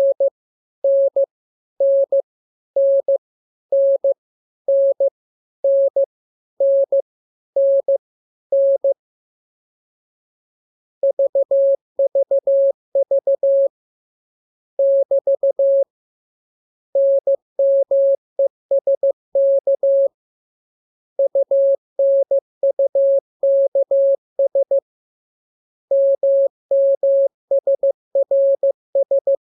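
Morse code sent as a single steady tone of about 600 Hz keyed on and off in dots and dashes. First one short character group repeats about once a second, then after a pause of about two seconds come longer runs of characters separated by short gaps.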